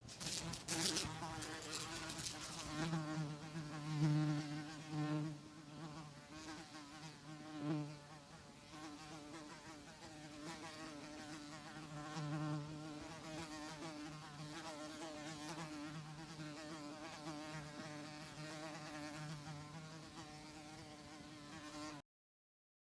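Housefly buzzing in flight: a continuous wavering drone that swells louder several times in the first eight seconds, then holds steadier before cutting off abruptly near the end.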